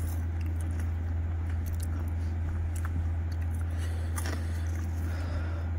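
A person chewing and crunching French fries, with scattered faint crunches, over a steady low hum that is the loudest sound.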